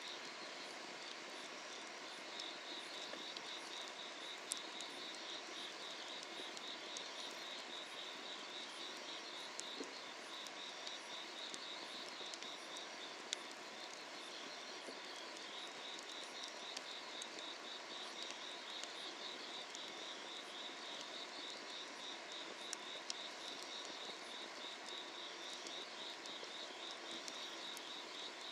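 Summer-night insects trilling in a steady pulsing chorus, which drops away for a few seconds mid-way and returns, over an even hiss, with a few sharp pops from a wood fire burning.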